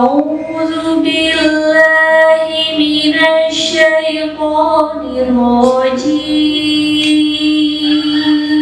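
A woman's voice reciting the Quran in a melodic chant into a handheld microphone, with long held notes and ornamented turns, stepping up to a long high note about six seconds in.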